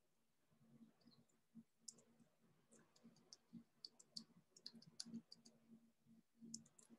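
Faint computer mouse clicks, irregular and more frequent in the second half, as anchor points are placed with Photoshop's pen tool.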